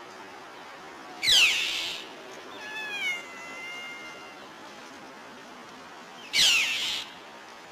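Tabby cat meowing: two loud, downward-falling meows about five seconds apart, with a softer, drawn-out meow between them.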